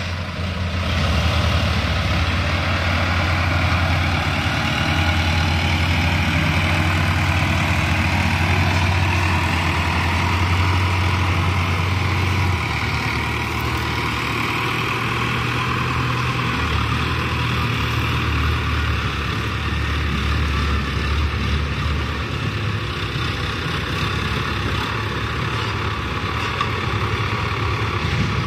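Diesel engines of a Sonalika tractor and an excavator running steadily. About twelve seconds in, the deep engine note changes as the tractor pulls away with its trolley loaded with earth.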